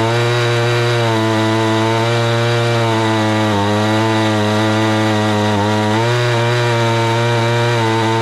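Gas chainsaw running at full throttle while ripping a log lengthwise in a chainsaw mill. The engine holds a steady pitch under load, dipping slightly twice as it bogs in the cut.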